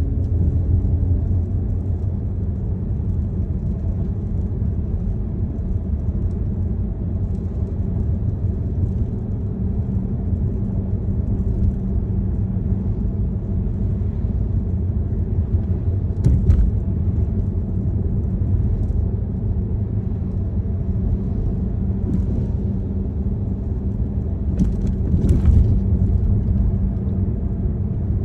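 Steady low road and engine rumble heard from inside a moving car's cabin, with a couple of brief clicks or knocks, one about two-thirds of the way in and a couple more near the end.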